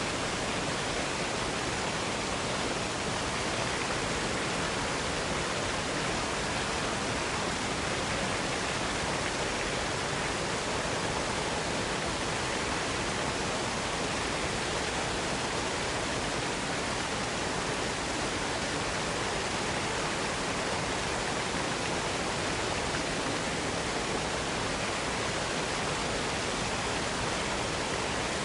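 Steady, even rushing noise of a waterfall, with no breaks or changes.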